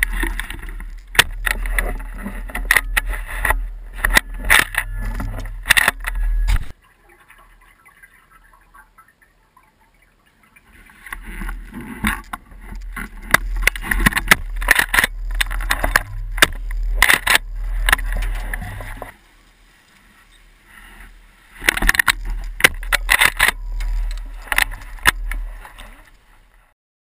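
Irregular scraping, rubbing and knocking over a low rumble, in three stretches broken by two quiet pauses.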